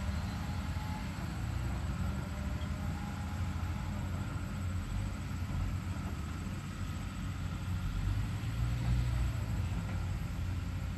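Hyundai HX210HD excavator's diesel engine running steadily with a deep rumble and a faint steady whine above it.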